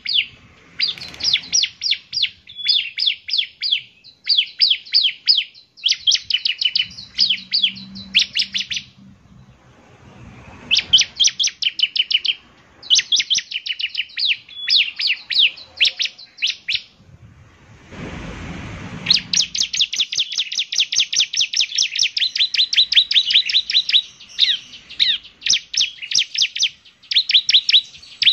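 A ciblek (bar-winged prinia) singing in rapid trains of sharp, high chirps. The trains last one to three seconds and are split by short pauses, with a brief burst of rushing noise about two-thirds in.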